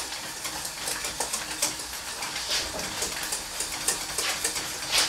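Food frying in a pan on the stove: a steady sizzle with scattered crackles, and light clicks and scrapes of a utensil stirring in the pan.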